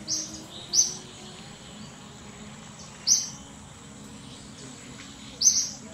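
Four short, loud, high-pitched chirps from a small animal: two in quick succession at the start, one about three seconds in, and one near the end. A faint steady outdoor background runs beneath them.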